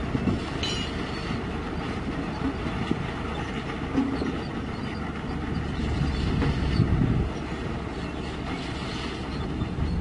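Crawler bulldozer's diesel engine running as its steel tracks clatter and clank over rocky ground.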